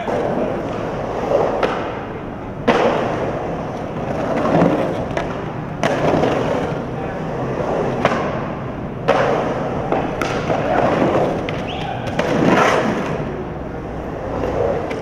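Skateboard wheels rolling and carving across a concrete bowl, broken by several sharp knocks of the board against the concrete.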